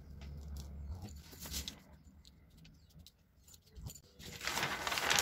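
Light scattered ticks from a tracing wheel rolled over kraft pattern paper. About four seconds in comes louder rustling of the paper as it is handled.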